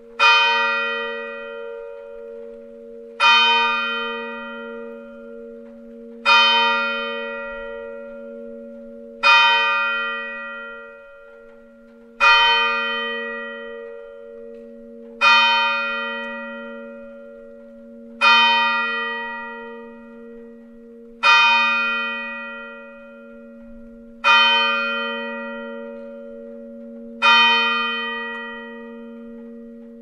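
Small church bell tolling slowly: ten strokes about three seconds apart, each ringing out and fading, with a low hum carrying on between strokes.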